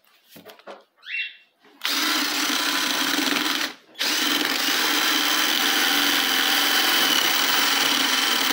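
Cordless drill spinning a corn cob against a metal grater, the motor's steady whine over the rasp of kernels being grated off. It gives a brief blip about a second in, runs for about two seconds, stops for a moment, then runs again.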